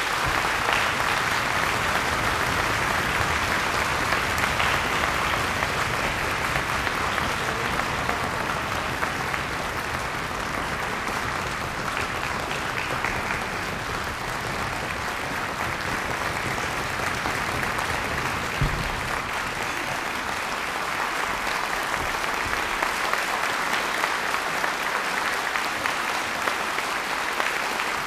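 Concert-hall audience applauding steadily after the band's final chord, a dense continuous clapping that dips a little midway and swells again near the end.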